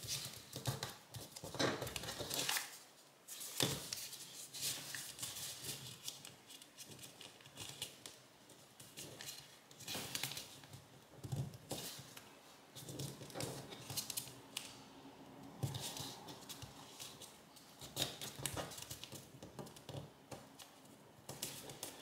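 Origami paper being folded and creased by hand: irregular crisp rustles and crinkles.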